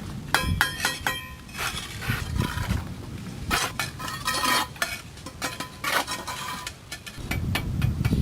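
Metal hand tools clanking and striking, a run of sharp knocks, several of them leaving a short metallic ring.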